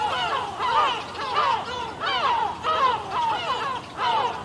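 A flock of seagulls calling, many cries overlapping without a break, each call a short rise and fall in pitch.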